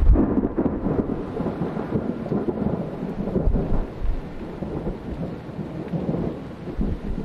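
Thunder rumbling: it breaks out suddenly and rolls on, slowly fading over several seconds.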